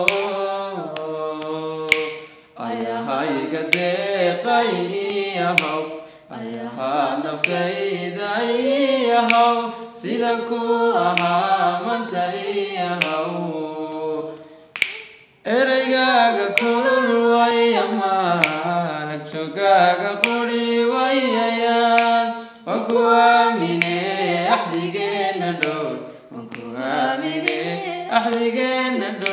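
A single voice singing a melodic song unaccompanied, with long held notes that slide up and down. Sharp clicks keep time every second or two.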